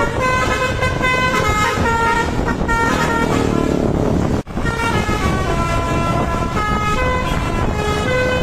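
Bus telolet horn: a set of multi-tone air horns playing a quick melody of held notes that step up and down in pitch, over the bus's engine and road noise. The sound cuts out for an instant about four seconds in, then the melody carries on.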